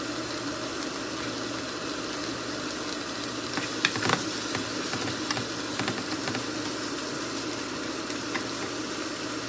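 Bok choy stems, celery and onion sizzling in hot olive oil in a nonstick frying pan as they are stir-fried. A few knocks of the wooden spatula and chopsticks against the pan come about four seconds in and again a little later.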